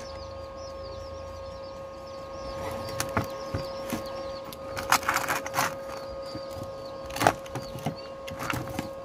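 Handling of metal tool parts on a workbench: scattered light clicks and knocks from about three seconds in, over a steady faint background tone. Birds chirp faintly during the first few seconds.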